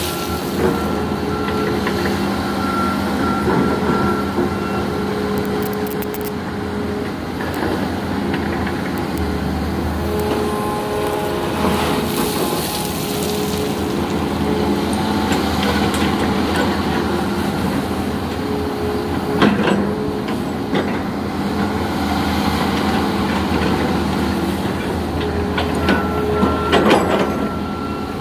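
Hitachi hydraulic excavator's diesel engine running steadily as the machine swings its boom and works its bucket, with a higher tone that comes and goes. A few metallic clanks stand out, one about two-thirds of the way through and a short cluster near the end.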